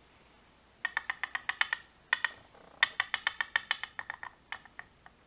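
Quick runs of small, sharp metallic clicks and taps, about ten a second, as small lock pins and parts are handled while a gutted lock cylinder is taken apart. The clicks come in three bursts, then thin out to a few single ticks near the end.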